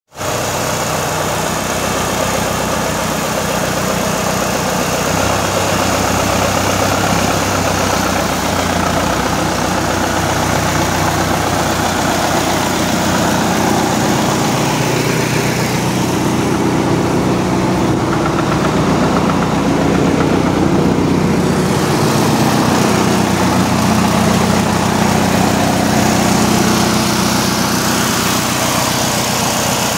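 Fiat 780 R tractor's diesel engine idling steadily.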